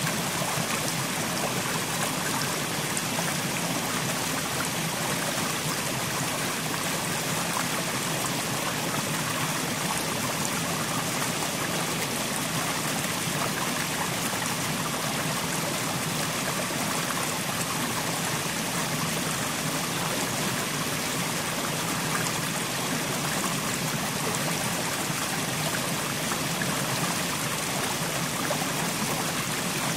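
Mountain stream running over stones, a steady rushing and trickling with no breaks.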